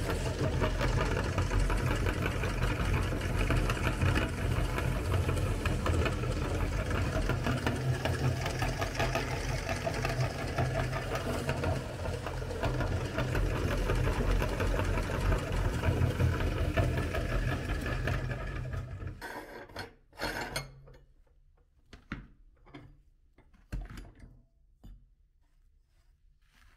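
Motorised meat grinder running steadily, grinding colourful cookies and forcing the crumbs out through its perforated plate: a dense, even mechanical whir with crunching. It winds down and stops about 19 seconds in. A few faint scattered rustles and taps follow as hands handle the pile of crumbs.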